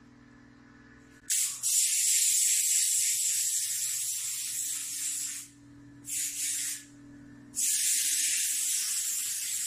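Small handheld paint spray gun hissing in bursts as it sprays paint onto a wall: a long spray of about four seconds starting just over a second in, a short one, then another long one near the end. A low steady hum sits in the gaps between sprays.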